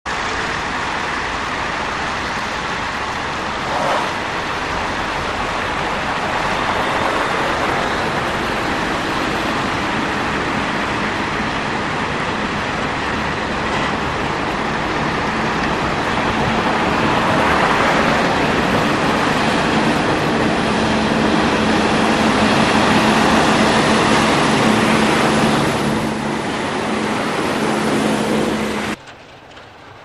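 Freeway traffic on a snow-covered road: a steady rush of tyres and engines, with a low steady engine hum from a passing line of snowplow trucks in the second half. The sound cuts off abruptly near the end.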